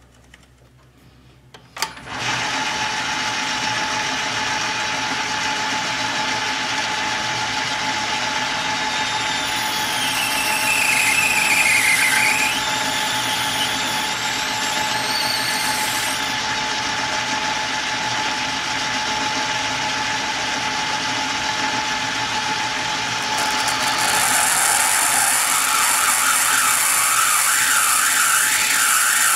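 Small metal lathe turning a brass crown-wheel blank while a cutting tool cuts into its face. The sound begins abruptly about two seconds in as a steady whine. The tool squeals for several seconds around the middle, its pitch wavering and dipping, and the cut grows louder and brighter near the end.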